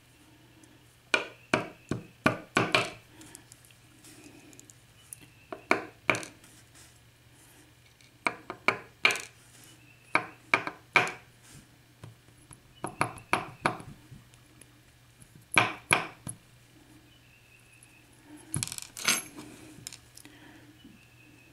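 Small metal clicks and clinks in scattered clusters as the bottom pins are shaken and tapped out of a Dorma mortice lock cylinder's plug.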